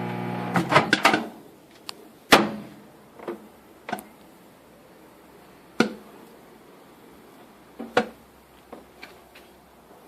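Microwave oven humming, then shutting off about a second in. Popcorn kernels popping in a silicone microwave popper, a few quick pops and then single pops spaced a second or more apart, the sign the batch is nearly done.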